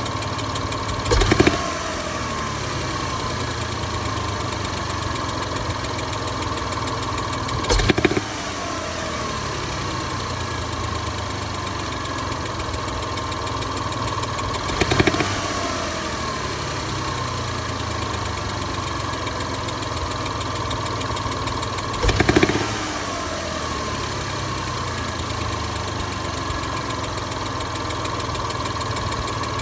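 Car engine idling, with what the owner describes as a hissing tick and knocking from the valve lifter area. Four times, about every seven seconds, it is briefly revved and falls back to idle.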